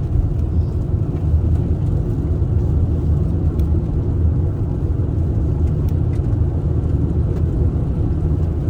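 Steady low rumble of a car driving on the road, heard from inside the cabin: engine and tyre noise, with a few faint ticks over it.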